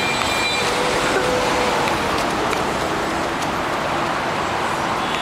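Steady traffic noise from a city street.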